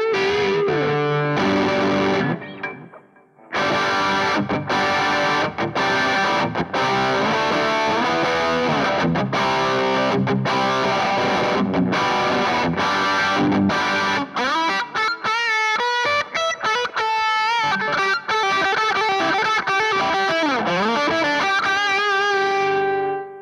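Sterling by Music Man Silo3 electric guitar fitted with DiMarzio Chopper and Transition pickups, played through distortion: lead lines with bent and vibrato notes. The playing stops briefly about three seconds in and drops away just before the end, as the control knob is turned down.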